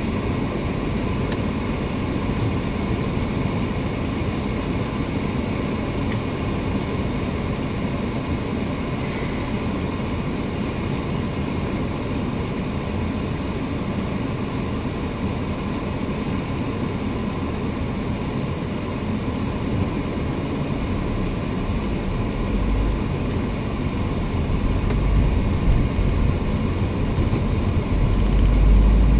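Car's engine and road noise heard from inside the cabin as it moves off and drives along, a steady low rumble that grows louder in the last few seconds.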